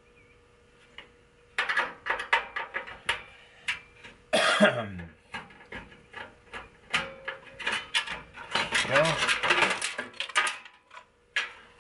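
Rapid metal clicks, knocks and rattles of a steel PC tower case and its internal parts being unscrewed and pried apart by hand. They start a couple of seconds in.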